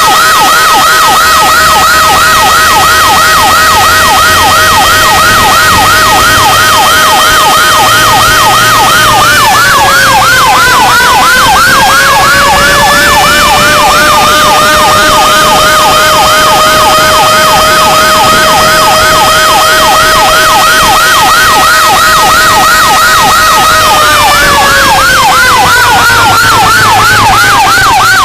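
Fire truck sirens sounding loud: a fast electronic yelp over a steady held tone that dips in pitch about ten seconds in, climbs back, and slides down again near the end.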